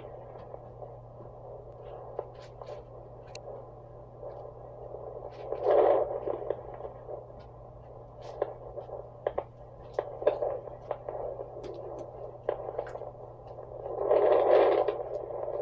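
Handheld fetal Doppler's speaker hissing and crackling over a steady hum as the probe is moved across the belly, with two louder swells of whooshing near 6 s and 14 s. The search finds no baby's heartbeat, as it is still too early in the pregnancy.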